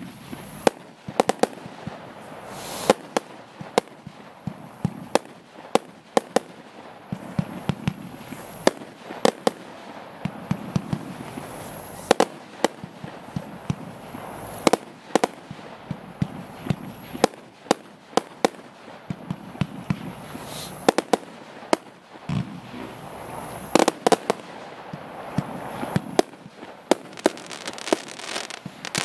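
Compound firework cake (Event Orange Dragon Box) firing a long, irregular string of shots: sharp bangs and reports, often several a second, over a haze of hissing and crackle.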